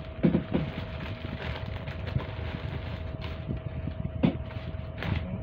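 Handling noise close to the microphone: scattered knocks and bumps, the clearest about four seconds in, over a low rumble and a steady hum.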